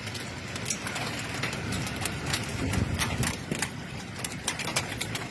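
Hailstorm: hailstones striking hard surfaces in irregular sharp clicks and knocks, several a second, over a steady low roar of the storm.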